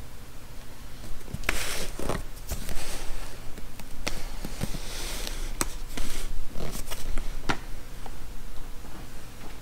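Cardboard camera box and its packaging being handled: two spells of rustling and sliding, with scattered sharp clicks and taps between them.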